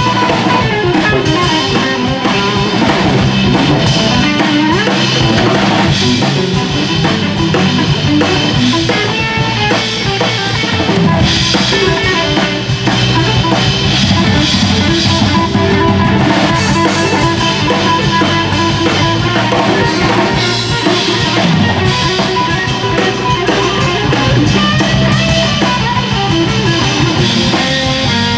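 Jazz band playing, with drum kit and guitar to the fore over bass.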